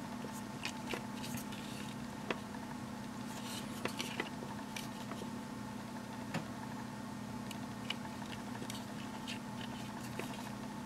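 Faint, scattered clicks and taps of fingers handling a pair of plastic-framed sunglasses, over a steady low hum.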